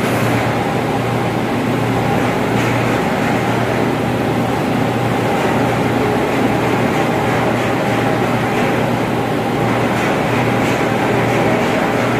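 Steady, loud machinery drone with a constant low hum and a fainter steady tone above it, unchanging throughout: running ventilation plant machinery.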